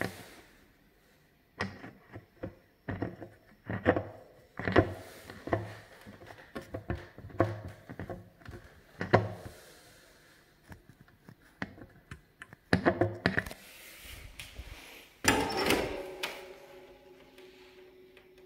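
Electric fan parts being handled: the plastic blade and chrome-plated wire guards knock and click irregularly, with a louder rattling clatter and brief ringing about fifteen seconds in.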